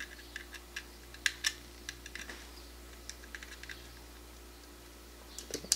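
Scattered small plastic clicks and taps of a mini-USB cable plug being handled and pushed into the mini-USB port of a BeagleBone Black board, with a quick cluster of clicks near the end.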